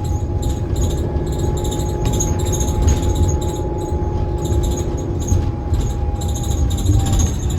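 Interior sound of a New Flyer XT60 electric trolleybus braking toward a stop, over low road rumble. A steady electric whine from its traction drive holds and then fades out about seven seconds in, with repeated short high-pitched chirps. The uploader calls the bus's sound while slowing down 'a little bit strange'.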